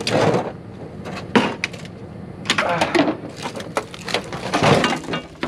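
Footsteps and scuffs crunching on dry leaves and debris in a large rusted metal bin, in four short bursts with rustling between them.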